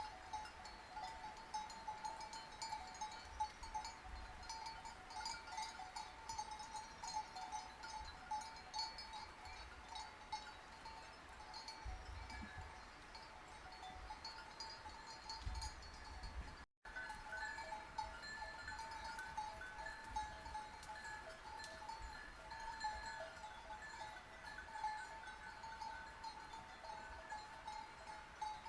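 Sheep bells clanking and tinkling continuously as a flock moves about, over a low rumble. The sound cuts out for an instant a little past halfway.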